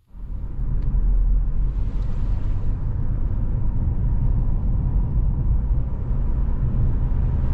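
A car driving on a paved road, heard from inside the cabin: a loud, steady low rumble of engine and road noise that cuts in abruptly.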